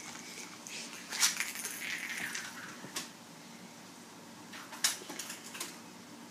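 Hard plastic egg clacking and skittering on a hardwood floor as a cat chases it, with sharp knocks about a second in, around three seconds and near five seconds, and a brief scuffle after the first.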